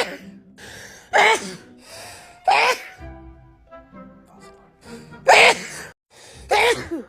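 A woman sneezing over and over: four loud sneezes, each with a falling pitch, two about a second apart, then a pause of about two seconds, then two more.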